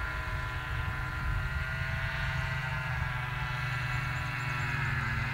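Flex-wing microlight trike's engine and propeller running at full power as it lands slowly, a steady drone growing gradually louder as it comes closer, dipping slightly in pitch near the end.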